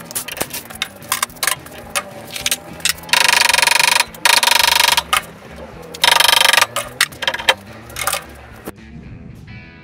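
Cordless impact driver run in three short bursts, with a fast rattling hammer, taking bolts out of a small gas engine's flywheel housing, amid light metallic clinks of bolts and tools being handled.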